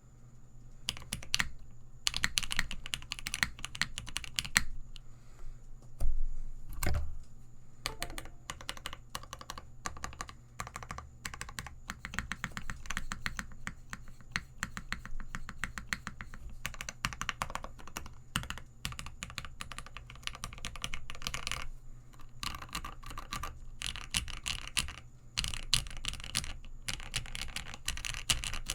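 Continuous fast typing on a custom 65% mechanical keyboard: an aluminium-cased Phase One 65 with case foam, lubed and filmed Gateron Ink linear switches, GMK keycaps and Cherry screw-in stabilizers. The keystrokes come in quick, uneven runs, with one heavier, deeper thump about six seconds in.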